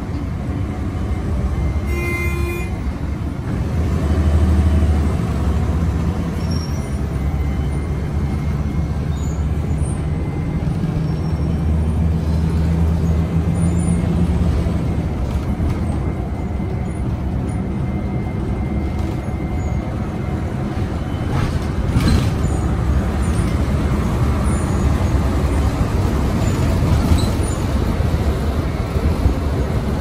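City bus running in traffic: steady engine drone and road noise, swelling briefly around four seconds and again around ten to fifteen seconds. A short beeping tone sounds about two seconds in, and two sharp knocks come a little past twenty seconds.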